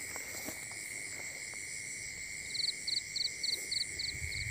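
Night insect chorus of crickets: a steady high drone throughout, with one nearby insect giving seven short chirps, about four a second, starting about two and a half seconds in.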